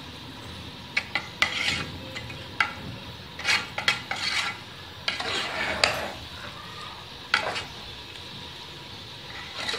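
Metal spoon scraping and clinking against an aluminium pot as boiled rice is stirred into hot jaggery syrup, in irregular strokes over a low steady hiss.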